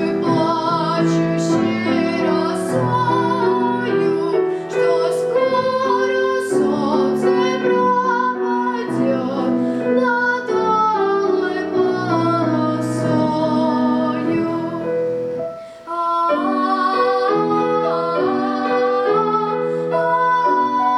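Classical art song: a high voice singing with vibrato over piano accompaniment, with a short break in the music about two-thirds of the way through.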